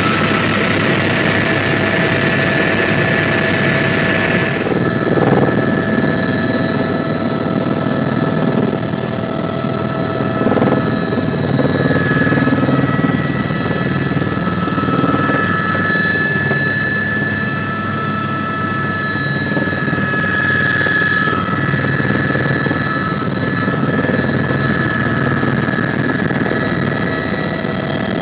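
Helicopter in flight heard from inside the cabin: steady engine and rotor noise with a held whine over a low rumble. A high hiss drops away about four seconds in.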